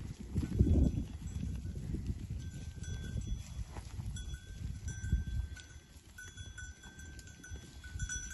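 Bells on a herd of grazing goats ringing on and off as the animals move, with a low rumble underneath that is loudest about a second in.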